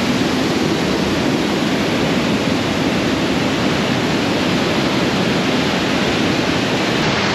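Waterfalls cascading over rock ledges into a narrow gorge: a steady, loud rush of falling water.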